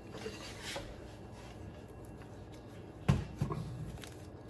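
Gloved hands working parts inside a stern-drive gimbal housing: a light rustle and rub, then two sharp knocks about three seconds in.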